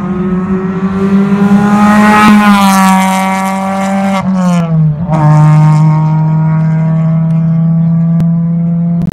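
Racing car engine running at high revs: the pitch climbs a little over the first two seconds, falls away about four to five seconds in, then holds a steady lower note until it cuts off suddenly.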